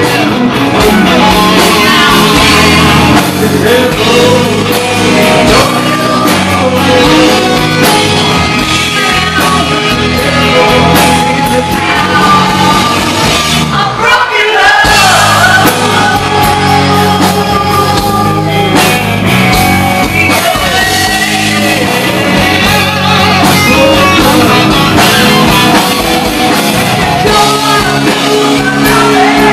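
A rock band playing loud and live: a man sings hard into a microphone over electric guitar, bass and drums. About fourteen seconds in, the low end drops out for a moment before the full band comes back in.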